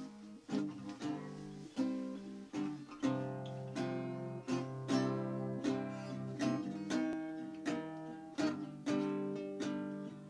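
A guitar played by hand: chords picked and strummed in a slow, even rhythm, with some chords played wrong by the player's own admission.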